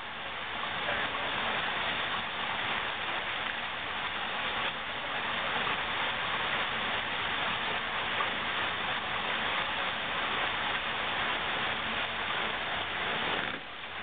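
Steady rushing of creek water pouring over a small waterfall, dipping sharply just before the end.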